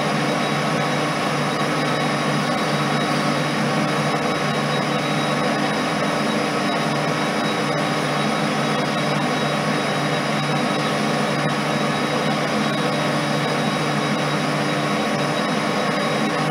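Colchester lathe running steadily while turning a disc of thin stainless steel sheet clamped against a pressure turning tool: a constant machine hum with several steady tones.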